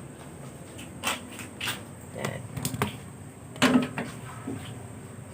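A few scattered light knocks and clicks of kitchen items being handled at uneven intervals, the loudest about three and a half seconds in.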